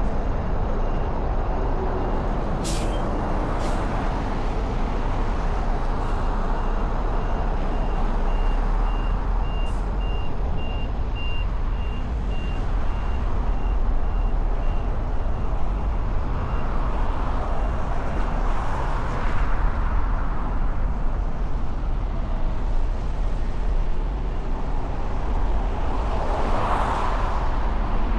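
City street traffic: a steady rumble of engines and tyres, with a high-pitched beep repeating a few times a second through roughly the first half. A couple of short sharp hisses come about three seconds in, and vehicles swell past twice in the second half.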